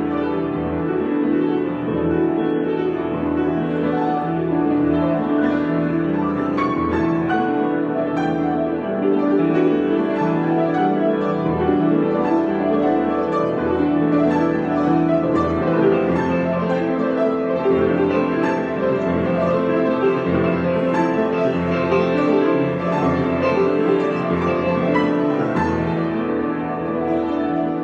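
Improvised solo keyboard music with a piano sound: long-held chords with notes moving over them.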